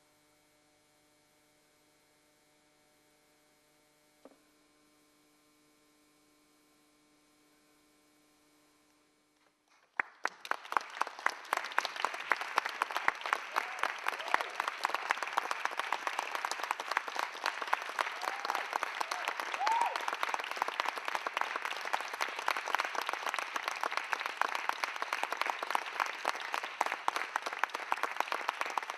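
Faint steady held tones with their overtones sound on their own. About ten seconds in, an audience breaks into applause all at once, a dense clapping that goes on unbroken.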